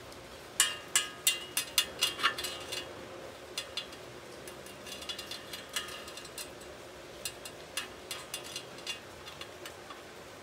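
A thin metal rod tapping on a galvanized steel weld: a quick run of sharp metallic clinks with a short ring, about three a second, loudest in the first three seconds, then lighter scattered taps.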